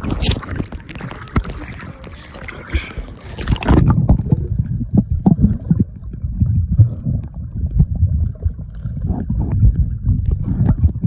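Swimming-pool water splashing and sloshing at the surface. About four seconds in, the sound turns muffled and low, heard from under the water: a churning rumble of moving water.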